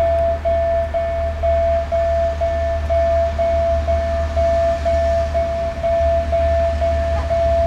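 Level crossing warning signal ringing a single steady tone, broken off about twice a second, over the low, steady rumble of an approaching TEP70 diesel locomotive's engine.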